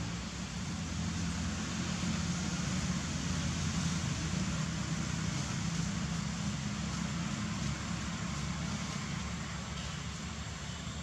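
Steady low rumble of distant motor-vehicle engine noise with a hiss over it, swelling slightly a couple of seconds in and easing off toward the end.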